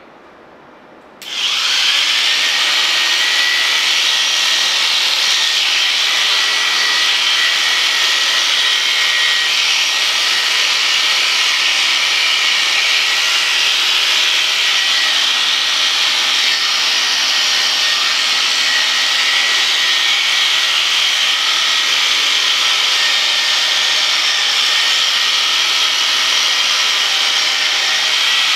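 Electric sheep shears switch on about a second in and run steadily with a high whine while clipping through a ram's fleece.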